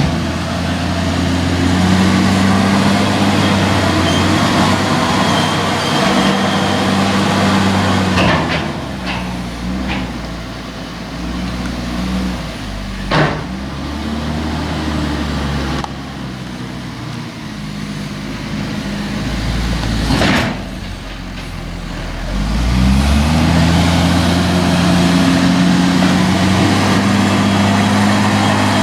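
Heavy diesel vehicle engine running steadily, easing off about eight seconds in, with several sharp clacks and knocks while it is throttled down, then revving back up about 23 seconds in and holding there.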